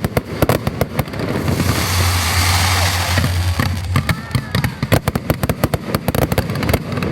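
Fireworks going off: rapid sharp bangs and cracks, with a dense hissing crackle that swells about a second and a half in and dies away after about three seconds.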